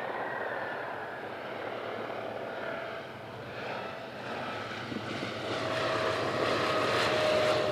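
Boeing PT-17 Stearman biplane flying low overhead, its radial engine and propeller giving a steady drone that grows louder in the last couple of seconds.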